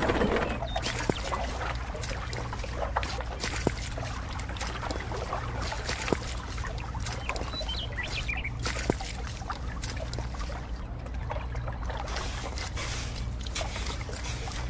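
Wet cement slurry sliding and squelching out of a miniature metal wheelbarrow into a popsicle-stick trough, with many small wet clicks and crackles over a steady low hum. Near the end a tiny plastic shovel smooths the cement.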